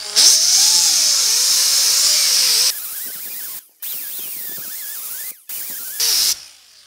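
Die grinder with a 3-inch Roloc abrasive disc grinding down welds on steel sheet metal: a high whine whose pitch wavers as the disc bears on the metal. It runs loudest for the first two and a half seconds, then quieter with short stops, and comes back in a brief loud burst near the end.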